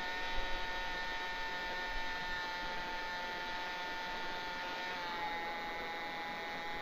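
Hobby-King Cessna TTX radio-controlled model plane in flight, its motor and propeller giving a steady whine. The pitch steps down slightly about five seconds in as the throttle is eased.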